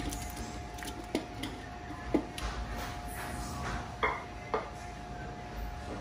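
A few sharp clinks and knocks of a plate and utensil against an earthenware handi as sliced onions are tipped into the oil, over a faint steady hum.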